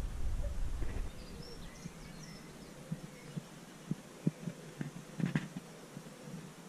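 Outdoor ambience: wind buffeting the microphone as a low rumble in the first second, then scattered soft low thumps, with a few faint bird chirps.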